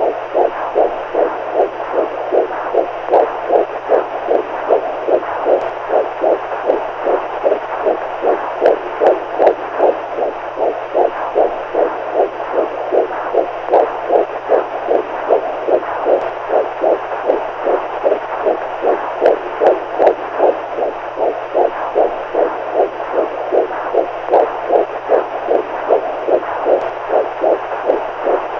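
Heartbeat sounds: soft beats in a steady, even rhythm over a continuous low hum.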